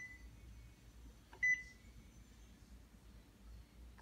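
Epson direct-to-garment printer's control panel giving two short, high single-tone beeps about a second and a half apart as its buttons are pressed while an ink-charge problem is being cleared.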